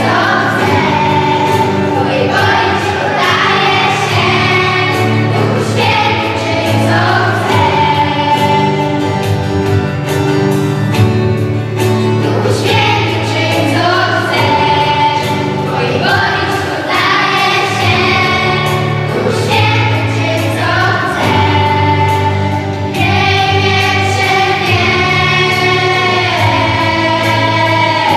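Children's choir and women's voices singing a worship song together, accompanied by guitar over sustained low bass notes.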